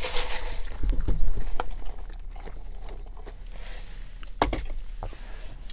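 Close-miked eating and handling noises: chewing and biting, with rustling over the first second or so and scattered sharp clicks and knocks, the loudest about four and a half seconds in.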